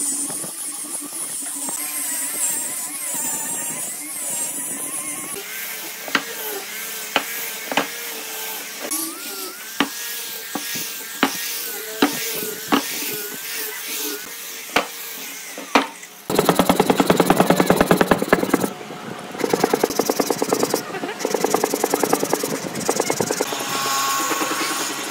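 Angle grinder with a sanding disc running against wooden blocks, its whine wavering with the load, with sharp ticks as the disc meets the block edges. About two-thirds of the way through, a fast, rhythmic scratchy rubbing on wood takes over.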